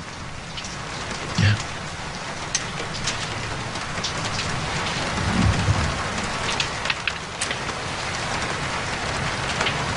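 Steady rain falling, an even hiss with scattered sharp drop sounds, and a brief low rumble about five and a half seconds in.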